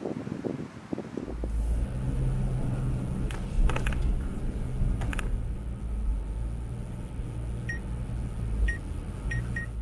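Jeep Wrangler engine running with a steady low hum that sets in about a second in. There are a few knocks around the middle and four short high electronic beeps near the end.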